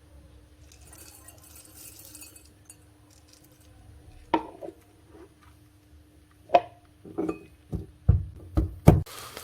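Kitchen dishes and utensils clinking and knocking: a few single strikes, then a quicker run of heavier knocks near the end. A steady hiss starts right at the very end.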